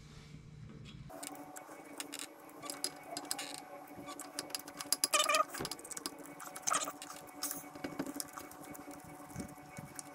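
Light metallic clicks and knocks from hands and a screwdriver working on an ATV's clutch assembly, loudest about five seconds in.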